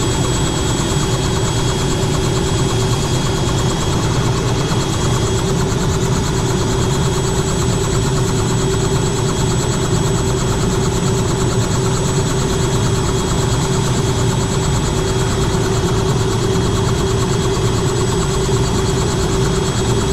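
Helicopter running on the ground with its two-blade main rotor turning: a steady engine and rotor drone with a constant high whine over it.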